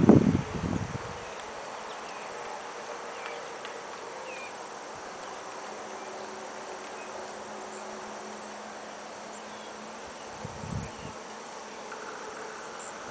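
A steady, high-pitched chorus of insects such as crickets trilling in a summer field, with a brief low rumble on the microphone in the first second.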